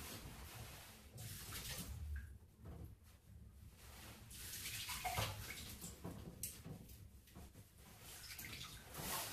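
Kitchen tap water splashing faintly into a stainless-steel sink in short spells as hands wash under it.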